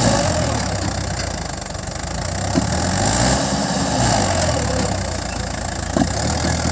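Mahindra 575 DI tractor's four-cylinder diesel engine running steadily, its note rising and falling a little, with a couple of short sharp clicks.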